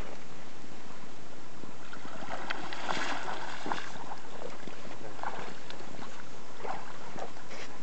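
Shallow water splashing and sloshing around a wading angler's legs in uneven bursts, loudest about two to four seconds in.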